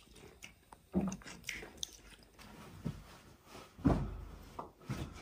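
Eating at a table: chewing, with scattered short clicks of chopsticks and bowls and a few soft thumps.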